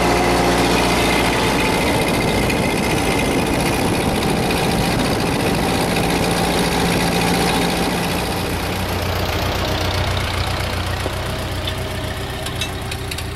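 A Ford 8N tractor's four-cylinder flathead engine running steadily under load while the tractor drives at road speed. After about eight seconds it turns quieter, as the tractor pulls away from the listener.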